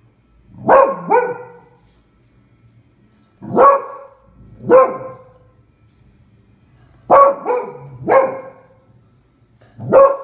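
A beagle barking in short bursts of one to three loud barks, about eight in all, with pauses between the bursts. These are alarm barks at a pram outside that she takes for a threat.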